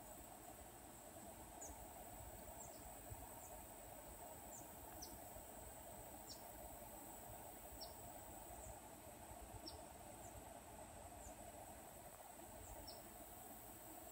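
Faint insect chorus, a steady high-pitched drone, with short high chirps repeating roughly once a second.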